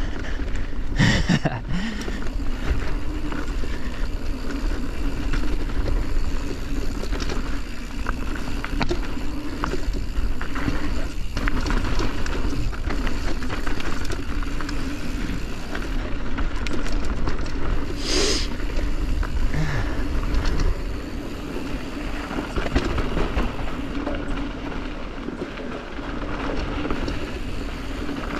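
Yeti SB140 mountain bike ridden along rocky singletrack: a steady rumble of tyres on dirt and rock with rattle from the bike and wind on the helmet-camera microphone, broken by a couple of brief sharp sounds, about a second in and again a little past the middle.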